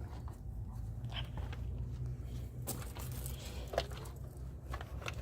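A steady low machine hum with a few light clicks and rustles over it.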